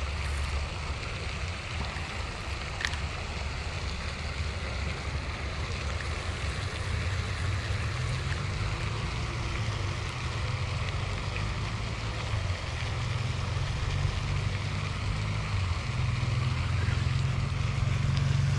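Steady low rumble of wind buffeting the microphone, with a single faint click about three seconds in.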